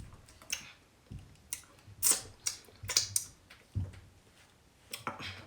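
A person eating close to the microphone: a string of short, sharp mouth smacks and clicks at irregular intervals.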